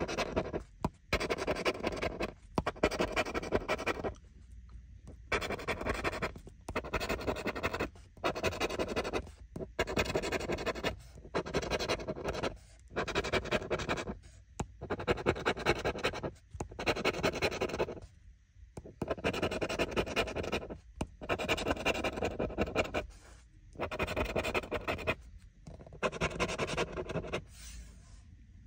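Scratching the coating off a scratch-off lottery ticket with a small hand tool. The scratching comes in repeated short bursts of quick back-and-forth strokes with brief pauses between them, as one spot after another is uncovered.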